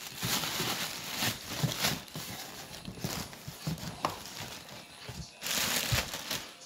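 Plastic packaging rustling and crinkling as bubble wrap and bags of packing peanuts are pushed aside and handled, with crackly bursts throughout and the loudest stretch near the end.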